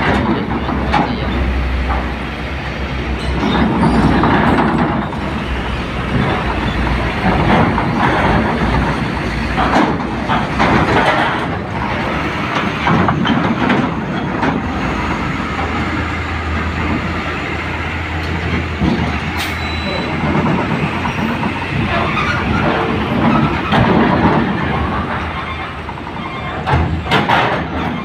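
Loaded cargo truck's diesel engine running as the truck rolls slowly up a ferry's steel-grated loading ramp. The ramp plates clank and rattle under its wheels again and again.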